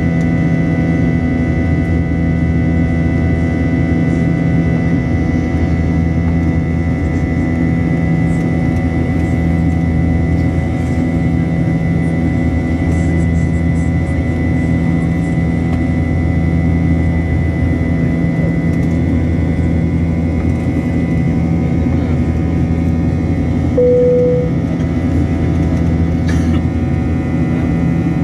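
Steady drone of a jet airliner's engines and rushing air heard inside the passenger cabin during the climb: a deep hum with several steady tones layered over it. A brief single tone sounds once near the end.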